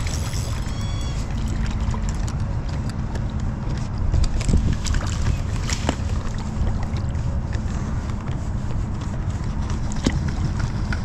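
Steady low rumble of wind buffeting the microphone, with scattered light ticks and taps.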